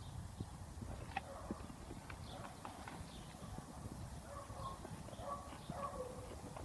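Faint footsteps: irregular taps on stone and gravel over a steady low rumble.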